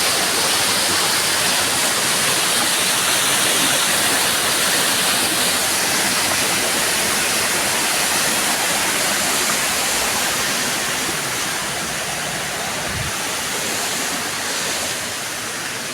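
Waterfall rushing: a steady, loud roar of falling water, easing off slightly near the end.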